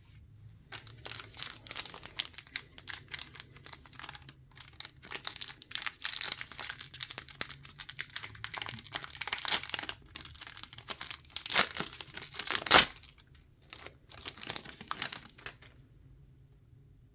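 Absolute Football 2024 trading card pack wrapper being torn open and crinkled: a dense run of crackling from about a second in until near the end, with a couple of sharper, louder crackles late on.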